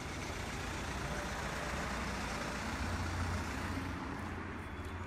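Makita EUB250 handheld engine blower running steadily, its engine drone under a wide hiss of air.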